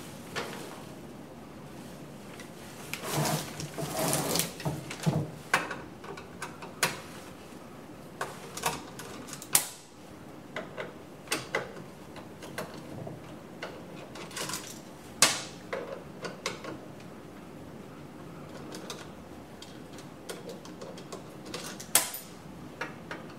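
Scattered clicks, taps and scrapes of a screwdriver and small metal parts of a Riello RDB oil burner being handled while it is taken apart, with a few sharper knocks as parts and screws are set down. A busier patch of rubbing and clatter comes about three seconds in.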